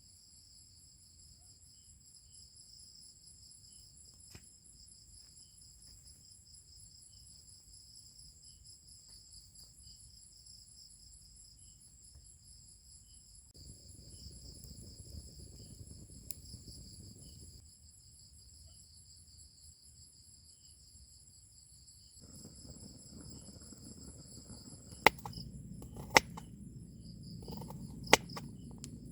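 Steady chorus of crickets and other insects, several high, finely pulsing trills layered together. A low rumbling noise swells for a few seconds in the middle and again toward the end, and near the end three sharp knocks stand out as the loudest sounds.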